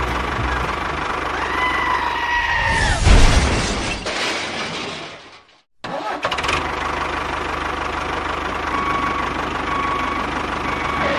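Engine running steadily with a low pulsing rumble, typical of a mini tractor's engine sound. It breaks off abruptly about five and a half seconds in and starts again a moment later.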